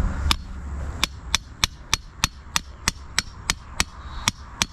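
A hammer driving a sturdy tent ground stake into the ground, with steady, evenly spaced blows at about three a second and a slightly longer gap near the end.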